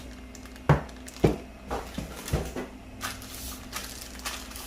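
Pieces of a mount stand being taken out of their box and set down: two sharp knocks about a second in, followed by several lighter clunks and handling noises.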